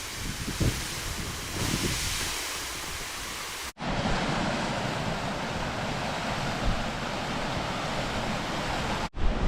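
Steady rushing of a waterfall, heard in short clips cut together, so the sound breaks off sharply twice. A few faint low thumps in the first clip.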